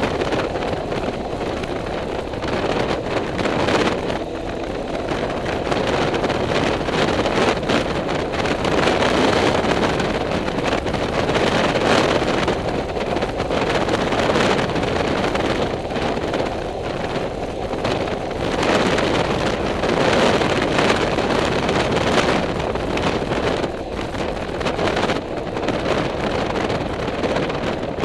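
Wind buffeting the microphone over the engine and road noise of a moving vehicle, a steady rush that swells and dips every second or two.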